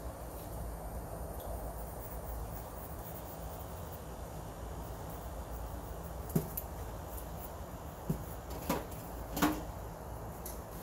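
A few short knocks and clicks over a steady low background hum, all of them in the second half, the last two the loudest.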